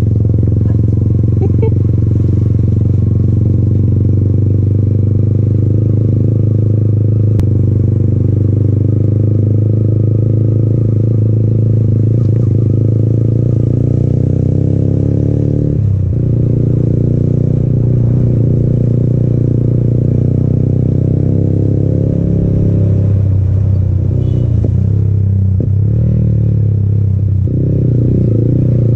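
Yamaha MT-15's single-cylinder engine through an aftermarket Akrapovic exhaust, running steadily at low road speed in second gear. The note dips briefly about halfway through and wavers a few times near the end as the throttle changes.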